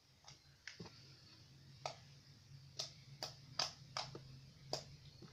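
Milky magic-glue slime being squeezed and stretched by hand, giving irregular sharp clicks and pops, about eight in a few seconds.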